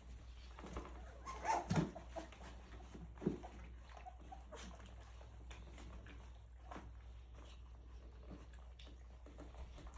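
Three-week-old Rottweiler puppies whimpering and squeaking, with a couple of louder cries about one and a half and three seconds in, among small wet clicks.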